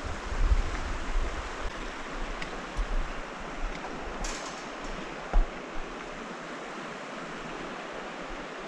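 Steady rush of a mountain river running over rocks, with low rumbling bumps on the microphone in the first three seconds. A brief clank comes about four seconds in, and a sharp thump just after five seconds.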